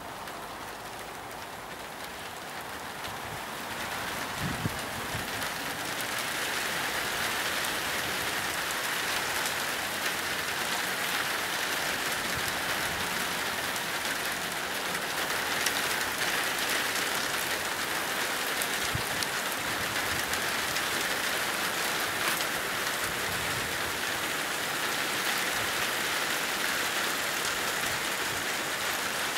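Rain falling steadily. It grows heavier over the first several seconds, then holds at an even level, with a few sharper drops ticking through it.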